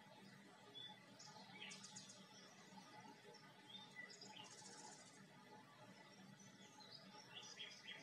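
Faint birdsong: scattered short chirps, a rapid trill about halfway through and a cluster of calls near the end, over a steady faint background noise.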